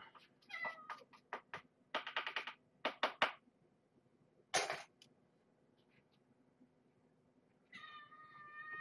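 Metal utensil clinking and scraping against a can as wet cat food is dished out: a quick run of sharp clinks, one louder scrape a few seconds later. Near the end a cat starts a long, steady meow.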